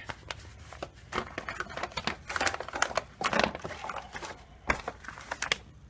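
A folded paper service sheet being pulled from its packet and opened: irregular rustling and crinkling with light taps and clicks.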